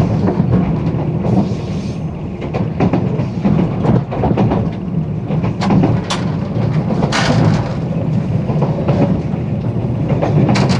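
Running noise inside a 485-series electric express train car: a steady low rumble with irregular clicks and knocks from the wheels on the rails.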